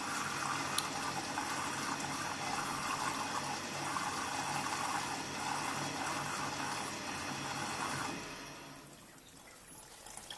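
Hoover washing machine filling with water for its final rinse with fabric softener: a steady rush of incoming water over a low hum, fading out about eight to nine seconds in as the fill stops.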